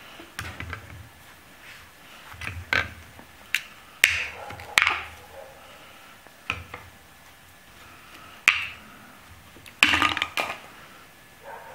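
Plastic vent caps on a 12-volt lead-acid marine deep-cycle battery being pried up with a hand tool: irregular sharp clicks and knocks of tool on plastic, with short scrapes and rattles between them.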